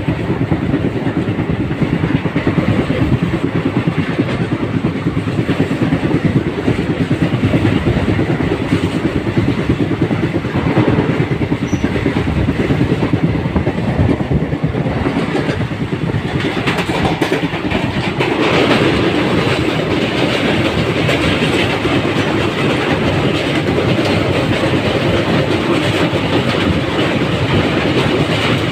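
Train running on the rails, its wheels clattering in a fast continuous rattle; about two-thirds of the way through the sound changes to a steadier rushing rumble.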